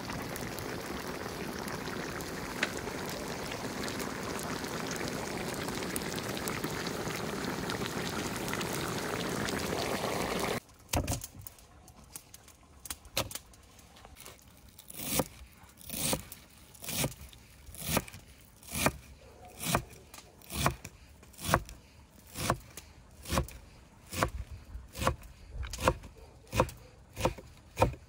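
A pot boiling steadily with a bubbling hiss, then an abrupt cut about ten seconds in to a run of sharp strokes on wood, about one a second, coming faster near the end.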